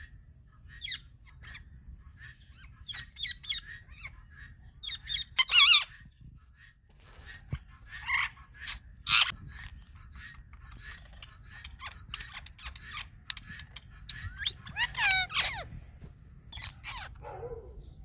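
Indian ringneck parakeets giving a string of short, sharp calls and chirps, with louder squawks about five and a half and nine seconds in and a wavering, warbling call around fifteen seconds, over a low steady rumble.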